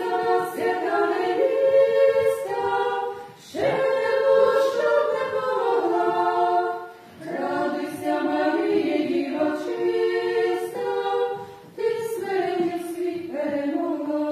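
A small women's vocal ensemble singing unaccompanied in harmony. The song moves in long held phrases, with short breaks between them about every three to four seconds.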